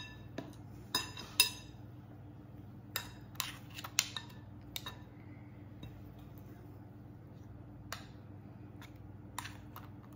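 Metal spoons clinking and scraping against a glass mixing bowl and against each other while scooping thick muffin batter: a dozen or so sharp clinks, some briefly ringing, spaced irregularly and mostly in the first half. A faint steady low hum runs underneath.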